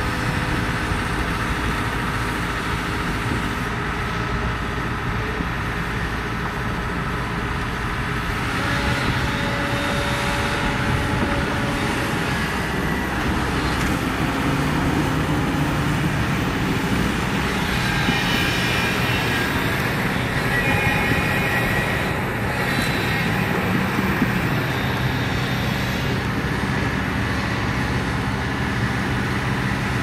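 Heavy diesel earthmoving machinery running continuously under load, its engine note shifting as it works, with higher whining tones coming and going in the middle.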